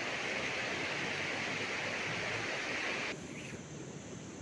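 Steady rushing of river water, an even hiss that drops abruptly to a quieter, softer hiss about three seconds in.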